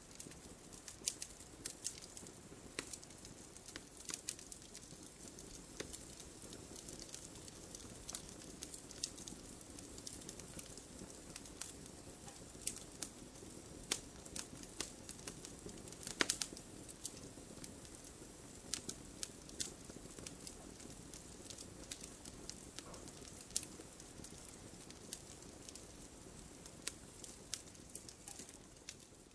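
Campfire burning, a low steady hiss with scattered crackles and pops, one louder pop about halfway through.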